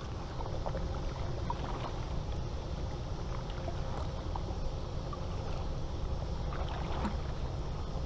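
Double-bladed kayak paddle stroking through river water, with small splashes and drips from the blades and a steady low rumble underneath.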